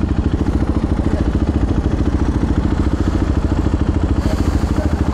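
KTM 390 Duke (third generation) single-cylinder engine running at low revs, with rapid, even exhaust pulses through a newly fitted Akrapovič long-can silencer with its dB killer in. A brief hiss about four seconds in.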